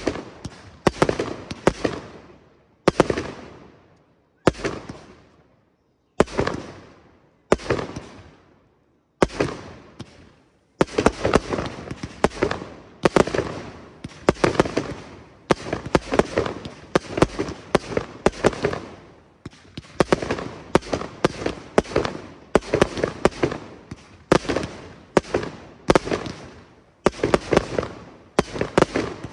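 Aerial fireworks bursting overhead: sharp bangs, each trailing off in an echo. They come about a second and a half apart at first, then in a quicker, denser string of reports from partway through.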